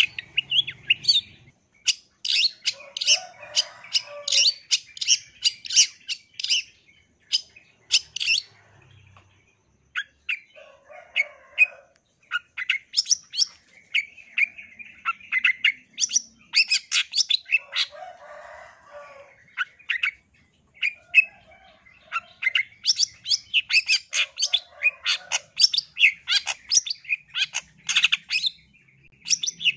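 Long-tailed shrike (cendet) singing in long, fast runs of sharp, high chirps, broken by a few short pauses.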